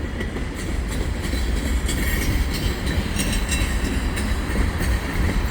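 Freight cars of a CN freight train rolling past on a curve: a steady low rumble of wheels on the rails, with brief high squeals and clicks about two to three seconds in.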